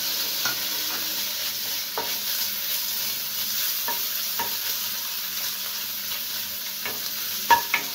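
Chopped garlic and ginger sizzling in melted butter in a nonstick kadai, stirred with a wooden spoon. The spoon gives a few light knocks and scrapes against the pan, the sharpest one near the end.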